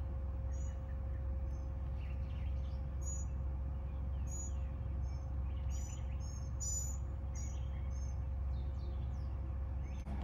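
Van air conditioner running with its compressor on: a steady low hum with a faint constant tone in it. Birds chirp over it in short, high calls, several in quick succession in the middle.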